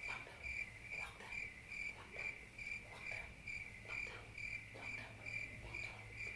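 Cricket chirping: short, evenly spaced high chirps, a little over two a second, over a faint low hum.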